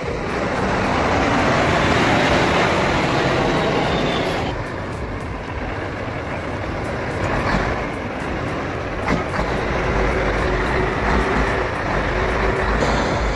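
Heavy machinery running under load: a dense grinding, engine-driven noise that changes character about four and a half seconds in, with a few sharp knocks.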